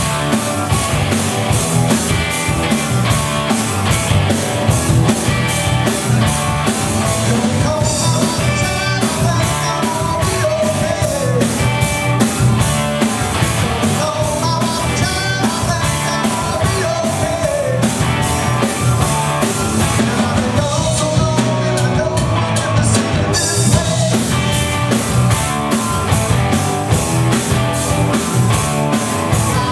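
Live rock band playing: electric guitars, bass and drum kit, with a lead vocal. The cymbals drop out briefly about two thirds of the way through.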